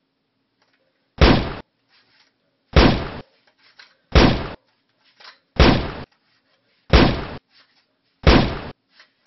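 Six shotgun-blast sound effects, evenly spaced about a second and a half apart, each dying away within half a second, with faint clicks between the blasts.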